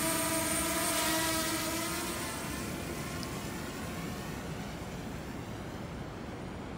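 DJI Mavic Mini drone's propellers whining as it flies away, with several steady tones that fade over the first two to three seconds. A steady rushing noise stays underneath.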